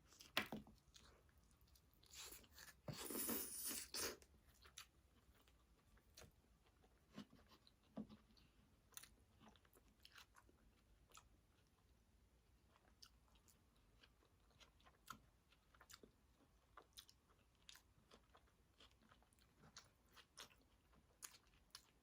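A person biting into and chewing food, with a crunchy bite about two to four seconds in, then faint, scattered chewing clicks.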